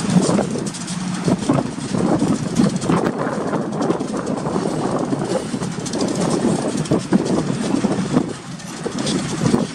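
A string of GE and EMD diesel-electric freight locomotives running light past, with a steady, dense clatter of steel wheels on the rails.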